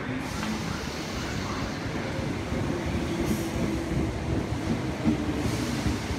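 British Rail Class 319 electric multiple unit pulling into a station platform and running past at low speed, its wheels rumbling on the rails. A steady hum comes in partway through, and there are two brief hisses.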